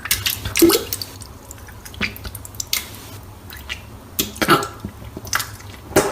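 Vomit splattering and dripping into liquid: a series of sharp wet splashes and drips, with a short retching grunt about half a second in.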